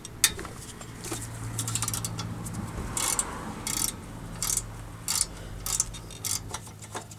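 Long-handled ratchet backing out a caliper support bracket bolt: a sharp click just after the start, then short bursts of ratchet clicking about every two-thirds of a second from about three seconds in, as the handle is swung back and forth.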